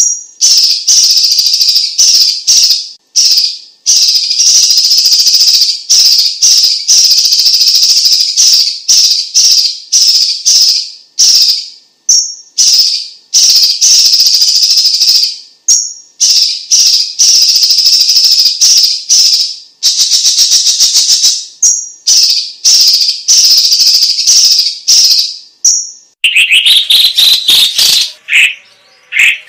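Cucak cungkok leafbird singing long, rapid, rattling trills, one after another with short breaks between them. Near the end the song switches to lower, sliding whistled notes.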